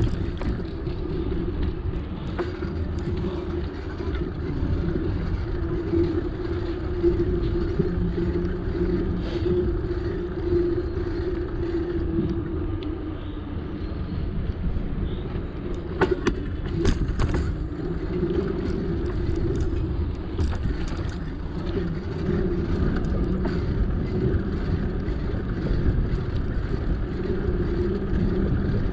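Steady rumble of a bicycle ride on the road, with wind and tyre noise and a steady hum. A few sharp rattling clicks come about sixteen seconds in.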